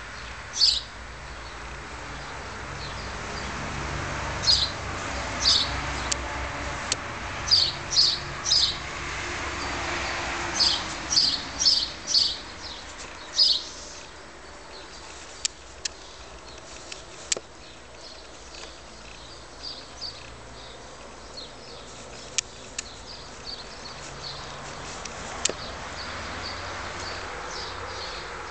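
A small bird chirping, about a dozen short, high chirps, some in quick runs of two or three, mostly in the first half and fainter later, over a steady background hum. A few sharp clicks come in the second half.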